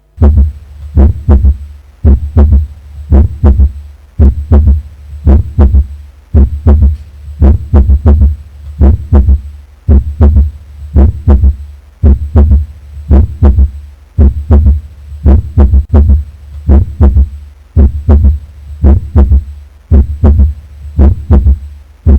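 Heartbeat heard through a stethoscope with a third heart sound (S3), the extra early-diastolic sound that makes a ventricular gallop rhythm. The beats come steadily at about one a second, each a quick cluster of low knocks.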